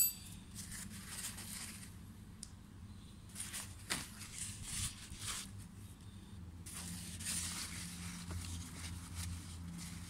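A single sharp metallic clink of small steel pedal-spindle parts, then intermittent rustling and crinkling of paper as the parts are handled and wiped, with a few light taps.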